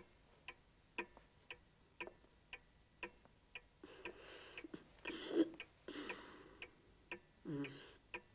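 Pendulum wall clock ticking steadily, about two ticks a second, running again after it had stopped. A few louder, noisier sounds come and go over the ticking in the second half.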